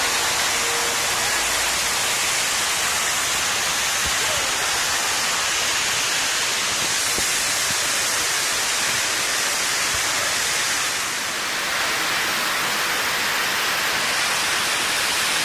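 Rushing white water of rocky river rapids: a steady, loud rush with a brief slight dip about eleven seconds in.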